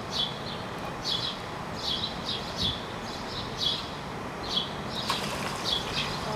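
Mallard drake taking off from the water with a burst of wingbeats and splashing about five seconds in. Short, high chirps from a small bird repeat every half second or so.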